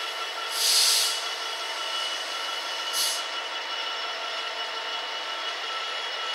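Class 66 diesel locomotive, with its two-stroke V12 engine, moving slowly at the head of a freight train of covered wagons: a steady running sound with thin steady tones above it. A hiss of air comes about half a second in and a short, sharp hiss about three seconds in.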